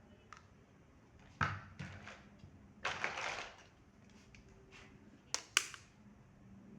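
Toy kitchen playset pieces and packaging being handled: a few small clicks and knocks, a brief rustle about three seconds in, and a quick pair of sharp clicks near the end.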